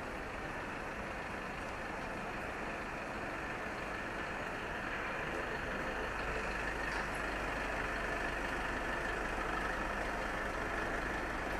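A vehicle engine running steadily, growing a little louder about halfway through.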